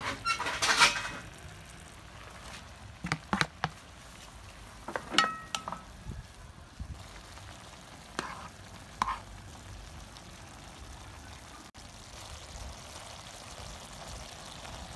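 Coconut milk simmering and bubbling in a nonstick pan, with a loud sizzling burst just after the start and several sharp clinks of a utensil against the pan as ingredients go in.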